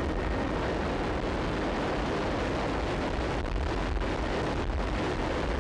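Steady, loud roar of a military transport plane's engines and rushing air, heard from inside the cabin.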